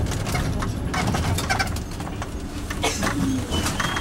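Cabin of a Nissan Diesel Space Runner UA city bus under way: a steady low diesel engine rumble with clicks and rattles from the fittings. Near the end a faint, thin, high squeal comes in as the bus brakes toward a stop.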